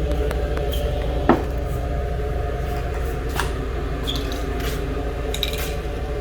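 Steady low machine hum, with scattered light clicks and taps over it and a sharper click about a second in.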